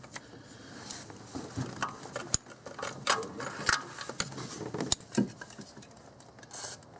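Irregular light clicks and clinks of hand tools and metal parts being handled in a car's engine bay, a handful of sharp clicks spread a second or so apart, with faint rustling between them.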